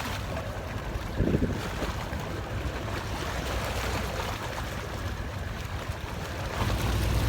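Sea waves washing and breaking against rocks, a steady rush, with wind buffeting the microphone as a low rumble that grows heavier near the end. A short louder surge comes about a second in.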